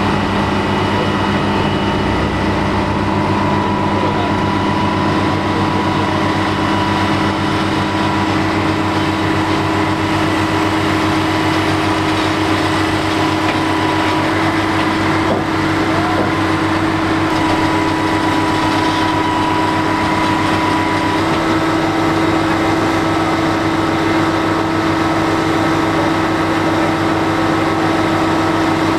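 Hopto H1900 hydraulic excavator's engine running at a steady speed, with a slight shift in its tone about three-quarters of the way through.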